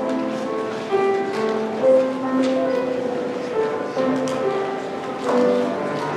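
Slow instrumental offertory music, held notes changing about once a second, played during the church offering.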